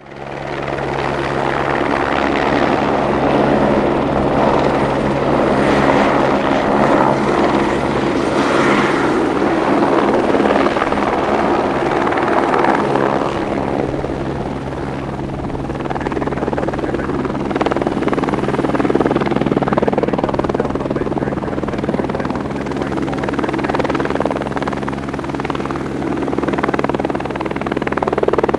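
Airbus Helicopters H125, a single-turbine helicopter, running close by as it arrives on the helipad, with rotors turning. It makes a steady low drone with constant hum tones under a rushing turbine and rotor noise.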